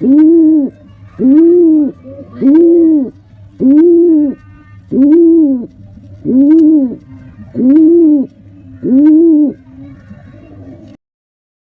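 Male pigeon cooing to a female: eight loud coos, each a single note rising and falling in pitch, repeated evenly about every second and a quarter.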